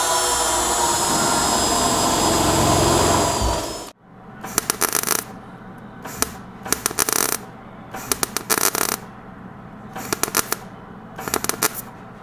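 An electric drill runs for about four seconds, its whine dropping as it stops. Then a MIG welder crackles in five short bursts, one to two seconds apart, each a plug weld through a drilled hole in the sheet metal.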